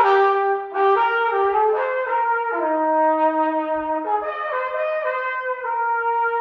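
Trumpet played legato: a slow phrase of about eight full, connected notes with soft tonguing, stepping up and down in pitch and sounding bright and brassy.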